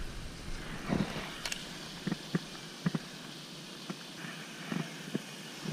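A baitcasting reel being cranked on a retrieve after a cast: faint handling noise with a few scattered light clicks at irregular intervals.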